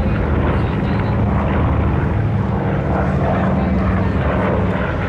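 North American B-25 Mitchell bomber flying past, its twin Wright R-2600 radial engines and propellers making a steady, rough drone.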